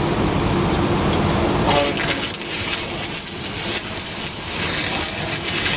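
Electric arc welding: the arc strikes about two seconds in and crackles and sputters steadily as a bead is run. Before that, a steady hum.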